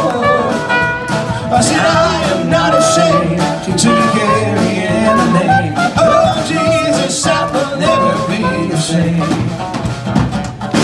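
Live gospel band playing an upbeat song with a steady beat and guitar between sung lines.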